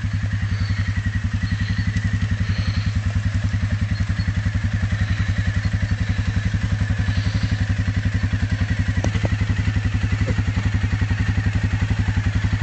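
Quad bike engine running steadily at low revs, an even, rapid pulsing with a faint steady whine above it.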